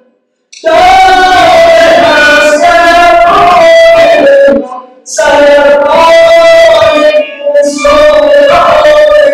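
Singing with musical accompaniment, in phrases that start about half a second in and break off briefly near the middle and near the end.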